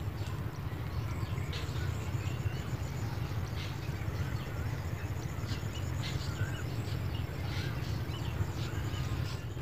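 Background room tone: a steady low hum with faint, scattered short chirps and ticks.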